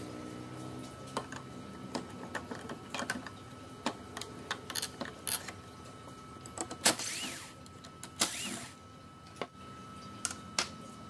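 Scattered clicks and taps of a metal hand tool working on wood. Two louder knocks about seven and eight seconds in are each followed by a short scraping squeal, as the nailed-on pivot strip is pulled off the block.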